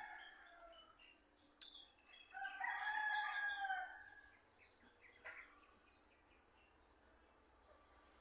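A rooster crowing once, a little over two seconds in, a single call of under two seconds, with a few faint bird chirps around it.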